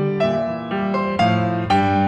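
Background piano music: gentle notes struck about every half second, each fading before the next.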